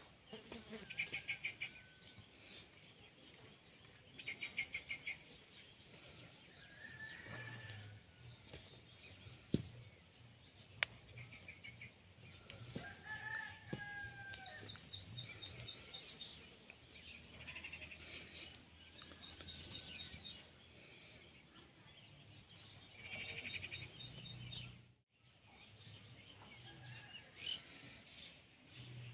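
Birds calling in the background: short quick runs of repeated chirps every few seconds, with a few single sliding calls between them.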